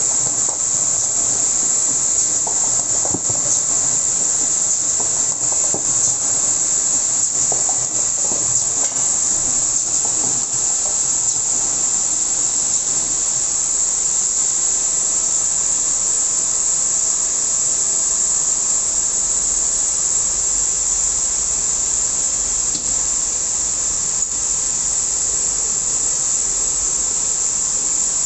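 A PM818A film overwrapping machine running: a steady, high-pitched hiss throughout, with light mechanical clicks and knocks during the first ten seconds or so.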